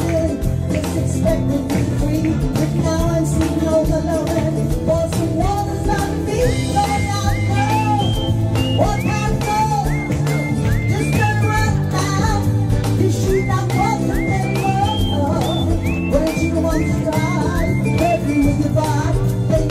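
Karaoke: a person singing into a microphone over a pop-rock backing track through the lounge's PA speakers, the voice swooping up in pitch on many notes.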